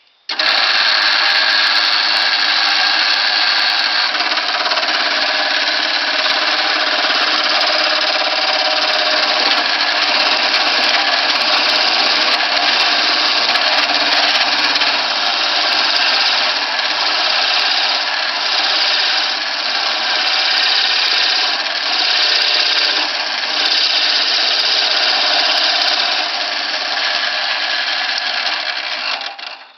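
Older, powerful electric drill boring a 2-inch hole in cedar with a Forstner bit, the bit cutting steadily with small dips in level, then stopping just before the end.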